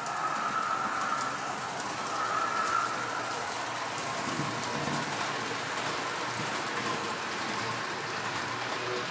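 H0-scale model trains running on the layout: a steady rolling hiss of wheels on track, with a faint motor whine that comes and goes.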